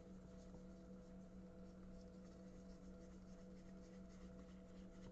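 Near silence: steady low hum of room tone with faint, light scratching and rustling throughout.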